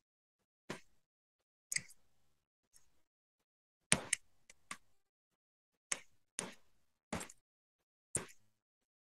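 Computer keyboard keystrokes: about ten separate key taps at an uneven pace, some in quick pairs, with quiet gaps between them.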